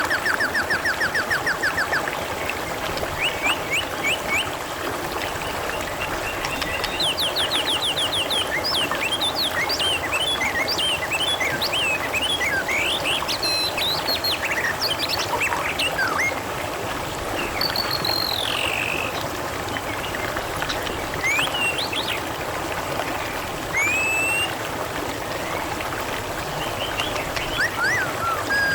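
Steady trickling, babbling water with wild birds chirping and whistling over it in many short calls. A fast buzzy trill runs for the first two seconds and starts again at the very end.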